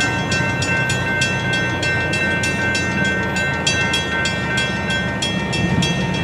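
Railroad grade-crossing bell ringing, about three strikes a second, while the crossing gates rise. It stops near the end as the gates reach upright.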